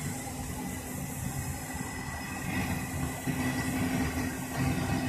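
Steady machine drone with a constant high-pitched whine over a low hum, a little louder in the second half.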